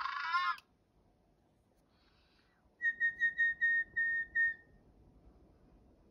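An electronic DigiPenguins toy penguin's chirping song stops about half a second in. About three seconds in comes a run of about seven short whistle notes, all at the same pitch, roughly four a second. This is the whistling that makes these toys sing in reply.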